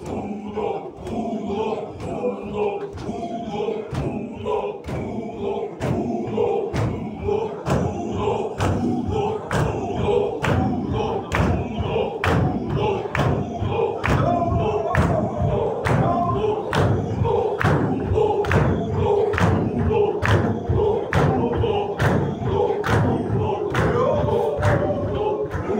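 Men's voices chanting a Sufi zikr together over a steady beat of stamping feet, about two beats a second. The beat comes in faintly about four seconds in and grows louder as the chant strengthens.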